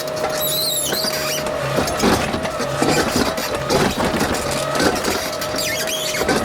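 Excavator running while it digs: a steady engine hum with a constant whine, and high-pitched squeals coming and going.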